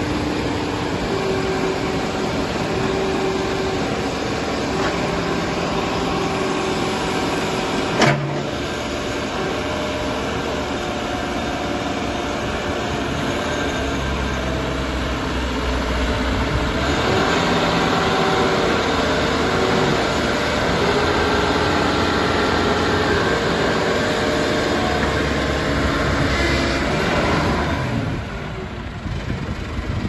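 A 2003 JCB 3CX backhoe loader's four-cylinder diesel engine runs steadily while the backhoe arm and stabilisers are worked hydraulically. There is one sharp knock about eight seconds in. The engine is louder for about ten seconds from the middle and drops near the end.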